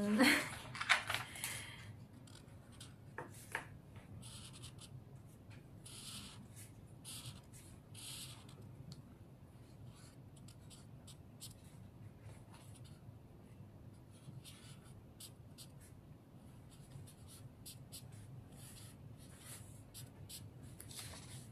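Felt-tip marker drawing on paper: many short, irregular scratchy strokes, with a few longer strokes about six and eight seconds in. A brief louder noise comes in the first second or so.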